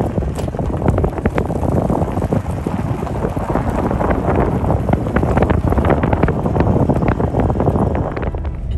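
Strong wind blowing across the microphone: a loud, uneven rush of noise that rises and falls in gusts.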